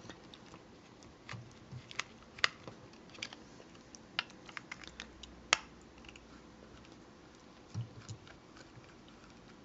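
Scattered light clicks and taps of hard plastic action-figure parts being handled and worked loose, at an irregular pace, with a couple of soft bumps near the end.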